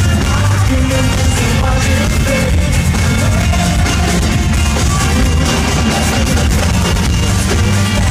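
A live pop-rock band playing loud with singing, heard from the crowd in a large arena. Heavy bass runs under the band throughout, with no break.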